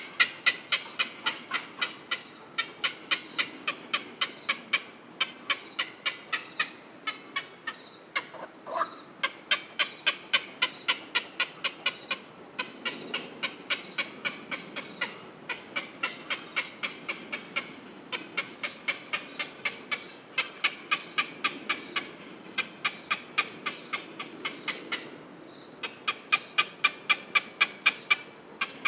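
Heron giving long runs of rapid, clicking calls, about five a second, broken by short pauses every few seconds. A steady faint high-pitched hiss runs underneath.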